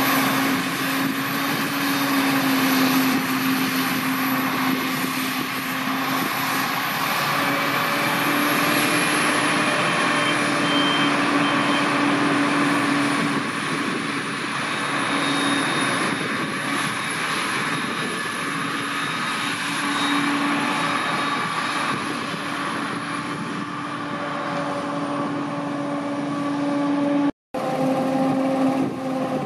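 Claas Jaguar 960 self-propelled forage harvester chopping maize under load, its engine and chopping gear running steadily with a constant high whine, alongside a tractor pulling a silage trailer. The sound cuts out for an instant near the end.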